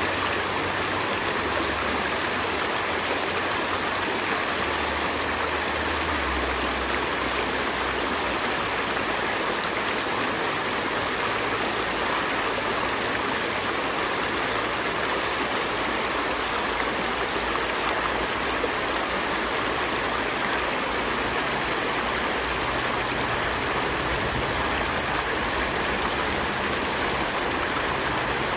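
A river stream flowing and rushing over rocks in a steady, unbroken wash of water noise.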